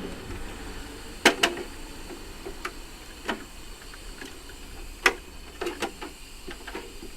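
Scattered sharp clicks and snaps, about nine of them, the loudest about a second in and about five seconds in: hand work pulling wiring and parts off a portable air conditioner.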